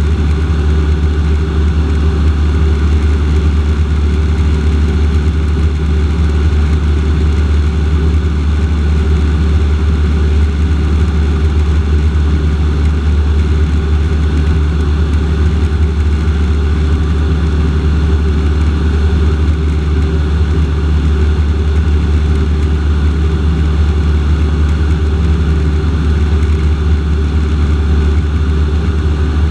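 Cessna 172R's four-cylinder Lycoming engine and propeller running steadily in flight, heard from inside the cockpit as an even, strong low hum.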